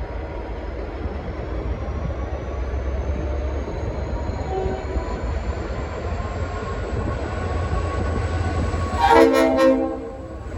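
V/Line N class diesel locomotive pulling away, a steady low rumble with a thin high whine rising slowly in pitch as the train gathers speed. Near the end the locomotive's Leslie RS5T multi-chime air horn sounds one loud chord lasting just under a second.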